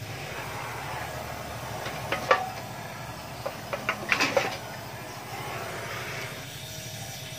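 Gas welding torch hissing steadily as it heats and welds the seam of a steel motorcycle muffler, with a few sharp snaps about two seconds in and a cluster more around four seconds in. The hiss fades out near the end.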